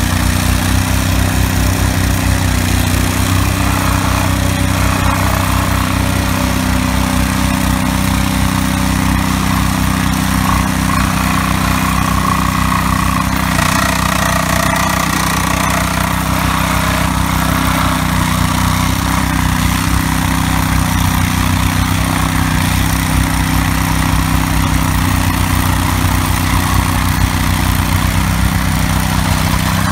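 Ditch Witch R300 compact loader's engine running steadily under load, with the fast, even shaking of its vibratory plow blade as it pulls fibre cable through the turf.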